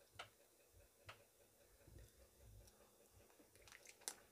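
Near silence with a few faint, short clicks: one just after the start, one about a second in, and a slightly louder one near the end.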